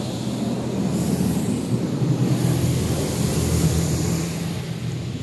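Automatic car wash heard from inside the car: water spraying against the windows and body over a steady low hum of the wash machinery, growing louder toward the middle and easing near the end.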